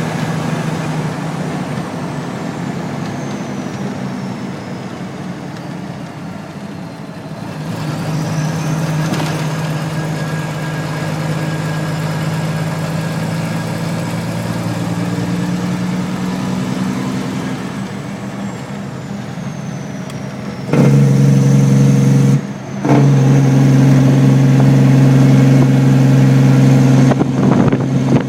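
Heavy truck engine pulling a lowboy trailer loaded with a backhoe, its note sinking and then climbing again under load. About three-quarters of the way through it gets much louder, with a brief dip a moment later, and then runs hard to the end.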